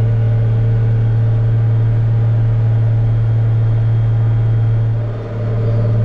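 Case IH 8940 tractor's diesel engine running at a steady drone, heard from inside the cab, with a brief dip in level about five seconds in.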